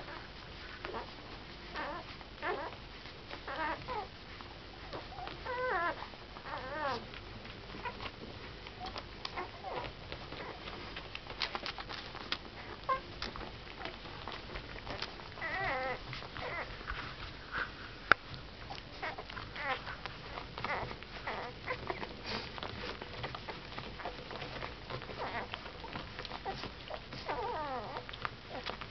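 Eleven-day-old Airedale terrier puppies nursing on their mother: high squeaks and whimpers that waver in pitch now and then, among small clicks from suckling.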